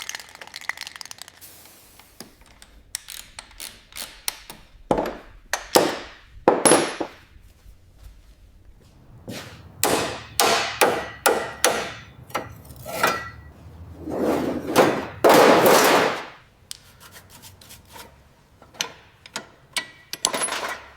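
Hand-tool restoration work: irregular knocks and short scraping strokes in clusters, with a longer, louder scrape lasting about two seconds around two-thirds of the way through.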